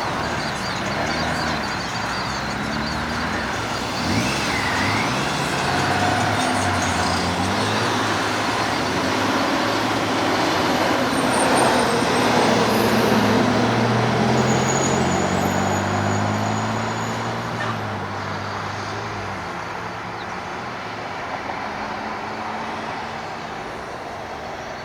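Lockheed C-130 Hercules turboprop engines during a takeoff, mixed with passing road traffic. The sound is a steady, loud engine noise with pitches that bend up and down; it swells to its loudest about halfway through, then slowly fades.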